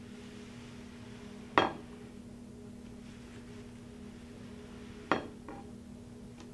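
Two sharp clinks of tableware knocking against a hard surface, about three and a half seconds apart, the second followed by a smaller knock, over a steady low hum.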